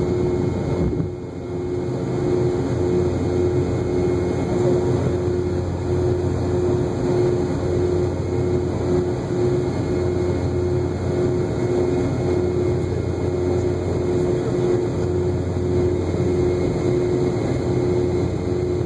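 Cabin noise of a Boeing 717 climbing out after takeoff: the steady drone of its rear-mounted Rolls-Royce BR715 turbofans and rushing air, with a hum that pulses in a regular beat a little more than once a second. The level dips briefly about a second in.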